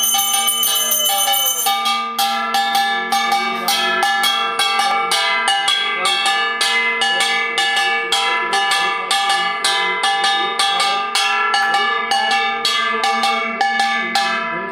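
Bell struck over and over, about three strokes a second, its tones ringing on between strokes.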